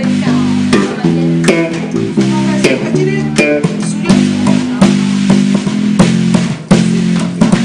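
Band music with a bass guitar playing held, changing notes over a steady drum beat.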